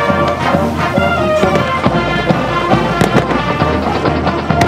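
A song playing, mixed with firework shells bursting, with several sharp bangs, the clearest about three seconds in.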